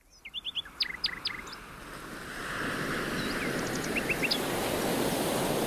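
Birds chirping over surf breaking on a beach. There is a quick run of chirps in the first second and a half and a few more about four seconds in, while the wash of the waves grows louder.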